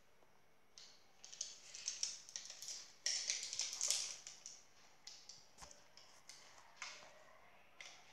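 Loose rhinestones rattling and clicking over a template board as it is tilted and shaken: a dense patter of tiny clicks, heaviest for about a second and a half in the middle, then thinning to scattered ticks.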